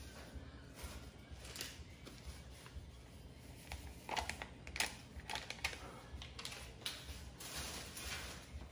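A plastic coffee-mix sachet crinkling as it is handled and its contents tipped into a ceramic mug, heard as a run of light clicks and rustles, most of them in the middle.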